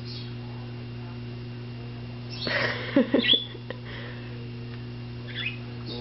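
Sun conures calling: a cluster of short, loud squawks and chatter a couple of seconds in, and a brief high chirp near the end, over a steady electrical hum.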